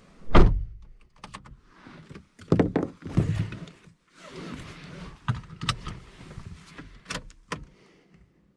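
The driver's door of a 2014 Opel Astra J GTC is pulled shut with a heavy thump about half a second in. Knocks and rustling follow, then several sharp clicks as the seatbelt is drawn across and buckled in the cabin before the engine is started.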